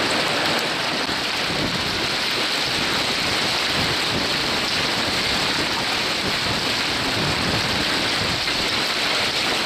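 Wind-driven large hail and heavy rain pelting parked cars and pavement, a steady dense hiss.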